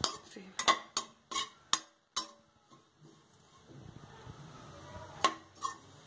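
Perforated metal spatula clinking and scraping against a kadhai while stirring oats being fried: a quick run of sharp taps in the first two seconds or so, then two more taps a little after five seconds in.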